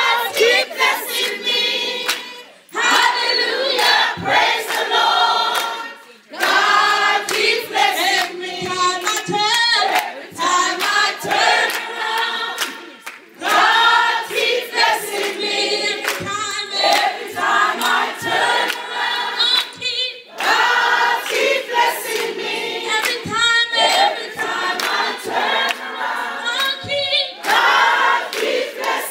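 A group of women singing together, loud and lively, in phrases a few seconds long with short breaks between them.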